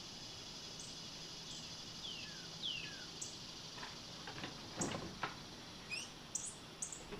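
Small birds chirping: a few short downward-sliding chirps in the first three seconds and thin high chips scattered throughout. A few soft knocks of handling come about five seconds in.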